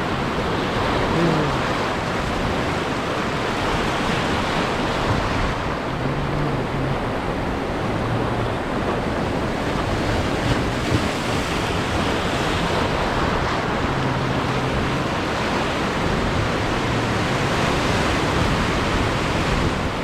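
Steady rush of surf washing over a shallow coral reef, with wind buffeting the microphone.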